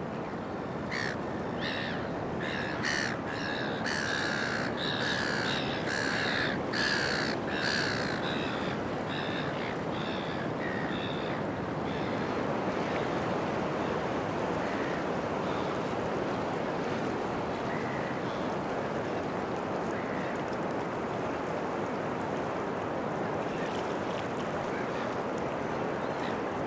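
Steady wash of ocean surf with a bird calling over it: a run of about a dozen loud calls in quick succession during the first ten seconds or so, then a few fainter, scattered calls.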